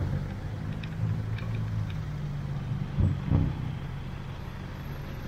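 Traffic jam: a queue of cars, vans and a jeepney idling and creeping past close by, a steady low engine hum. Two short thumps about three seconds in.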